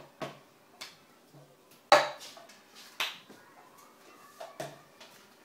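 Cup-rhythm percussion on a school desk: hand claps, slaps on the tabletop and a plastic cup struck and set down on the table. It comes as a slow, uneven series of sharp knocks and claps, the loudest about two and three seconds in.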